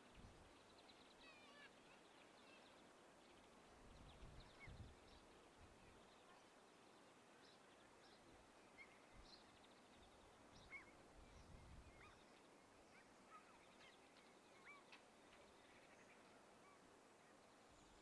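Quiet outdoor ambience with faint, scattered short bird chirps and calls, and soft low rumbles now and then.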